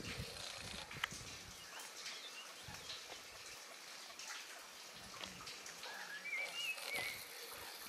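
Outdoor ambience of wild birds singing over a steady background hiss, with a short warbling bird phrase about six seconds in. A single sharp click sounds about a second in.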